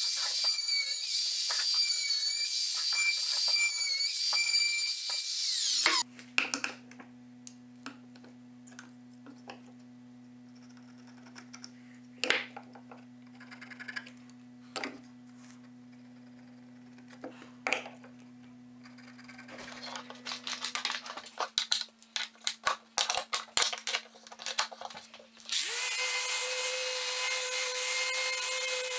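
A power tool runs with a high, wavering whine and cuts off about six seconds in. Then come quiet scattered clicks and taps over a low hum, as the board is marked with a pen and square. A few seconds before the end, a random orbital sander starts and runs steadily on the board.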